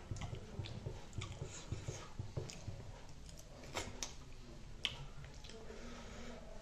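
Close-up eating sounds of a person eating saucy chicken wings by hand: chewing and wet mouth smacks, with a scatter of short sharp clicks.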